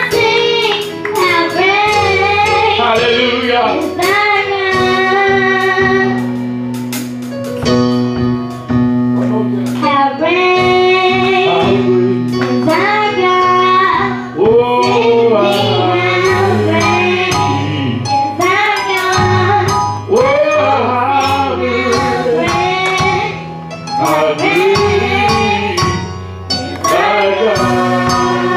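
Gospel singing by female voices with vibrato over instrumental accompaniment, with sustained bass notes and a percussion beat.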